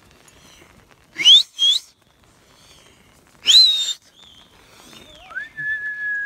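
A herder whistling to a flock of sheep and goats: two short, sharp rising whistles about a second in, a louder rising whistle midway, then a longer held whistle at a lower pitch near the end.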